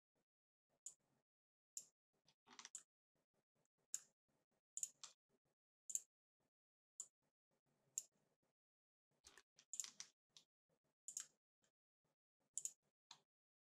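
Faint computer mouse clicks, roughly one a second, with a quick flurry of several clicks a little past the middle.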